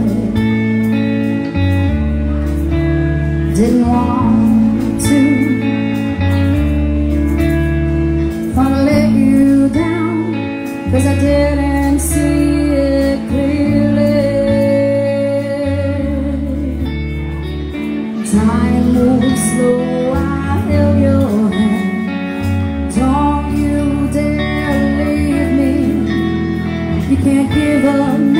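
Live band playing a song: a woman singing lead over electric guitar, bass guitar and a drum kit.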